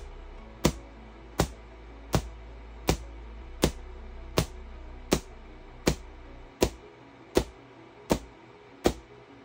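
QCW pancake Tesla coil firing single bursts at a steady rate: a sharp crack about every three-quarters of a second, over quieter background music.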